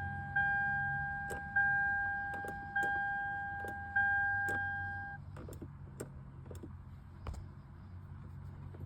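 A 2007 Lexus IS350's electronic warning chime dinging about once every second and a bit, each ding fading, then stopping about five seconds in; a low hum and scattered light clicks run underneath.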